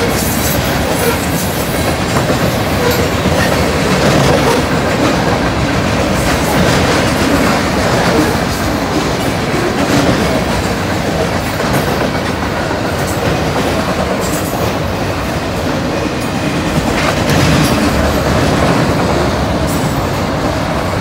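Norfolk Southern mixed freight train's cars rolling past: a steady, loud rumble of steel wheels on rail with clickety-clack over the rail joints.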